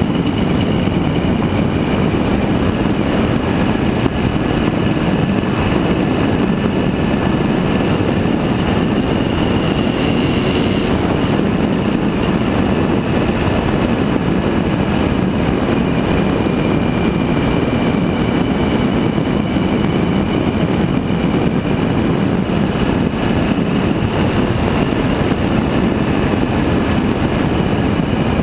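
Suzuki V-Strom 1000 motorcycle on the move at a steady road speed: its V-twin engine and the ride noise make one constant, loud drone, without revving or gear changes.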